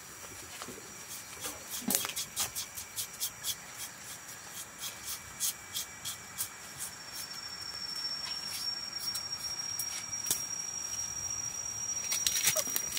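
Wood fire crackling under a pig carcass being singed to burn off its bristles: sharp pops about two or three a second through the first half, with a few more near the end. From about the middle a steady high whine and a rising hiss come in.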